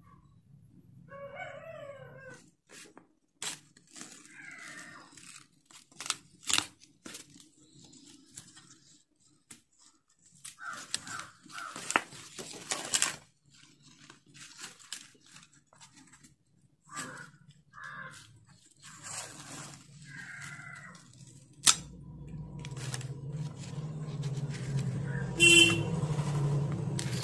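Dry, papery corn husks rustling and tearing as they are handled and peeled from ears of corn by hand, in irregular short crackles. About 22 seconds in, a sharp click, then a steady low hum underneath to the end.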